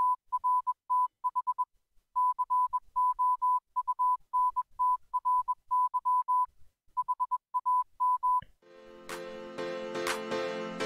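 Morse code: a single high beep keyed on and off in short and long tones, the sound of a CW signal, stopping about eight seconds in. Music then starts near the end.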